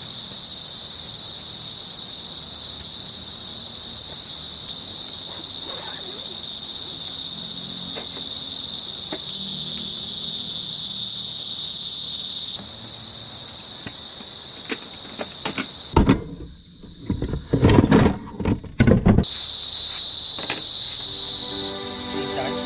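A steady, high-pitched chorus of forest insects, crickets among them, chirring without a break. About three-quarters through, the chorus drops out for roughly three seconds of loud knocks and thumps close to the microphone, then returns.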